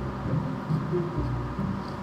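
Background music with held low notes that change every fraction of a second.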